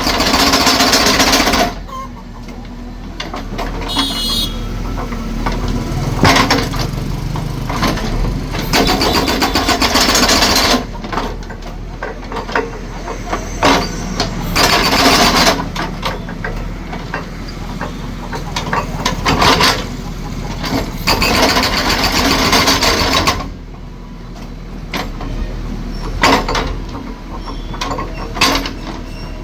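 Concrete breaker hammering concrete in loud stretches lasting several seconds, with a machine engine running in between.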